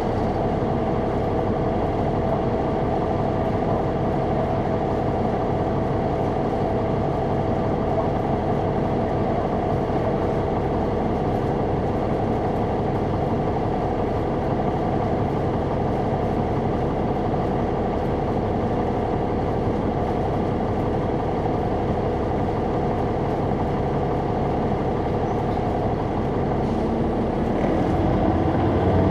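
Caterpillar C9 inline-six diesel of a 2004 Neoplan AN459 articulated bus, heard from inside the bus, running steadily with a constant drone. Near the end it grows louder and starts to rise in pitch.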